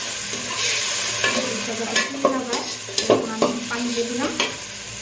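Fried onions and whole spices sizzling in oil in an aluminium pot while a spatula stirs and scrapes the bottom. A steady frying hiss runs underneath, and several scraping strokes stand out from about two seconds in.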